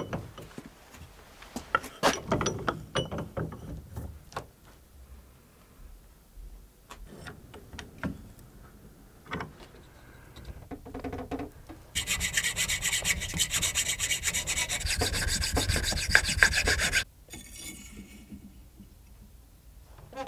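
A wooden block knocked against a vise while being clamped, then a thin hand tool scraping out a slot in the block's end grain for a blade tang. Scattered scrapes and taps lead into about five seconds of fast, even rasping, the loudest part, which stops abruptly.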